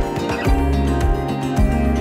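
Background music with a steady beat under a landscape montage: held tones over a kick drum roughly twice a second.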